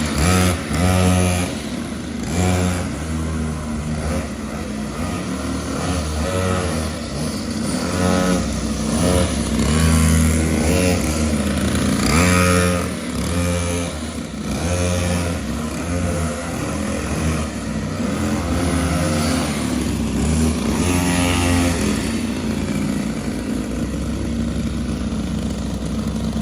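Mini motorcycle engine revving over and over, its pitch climbing in short bursts every second or two and dropping back in between.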